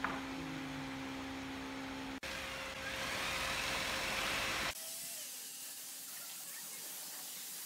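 Steady mechanical noise with a hum, then from about five seconds in the even hiss of a compressed-air spray gun spraying finish onto wooden cabinet door frames.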